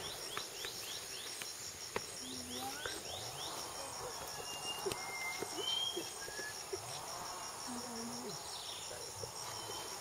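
Tropical rainforest ambience: a steady, evenly pulsing high-pitched insect chorus, with scattered short bird whistles and a quick run of falling chirps in the first second or so.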